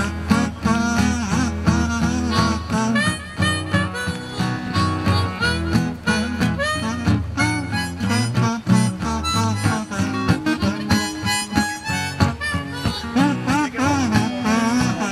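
Kazoo solo playing a bending, sliding folk-blues melody over a strummed acoustic guitar.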